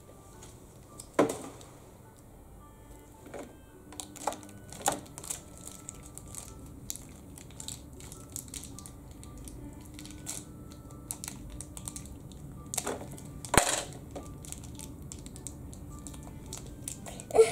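A small plastic blind-bag wrapper being crinkled and picked open by hand, with scattered sharp clicks and taps of tiny plastic toy pieces. The loudest clicks come about a second in and again near the end.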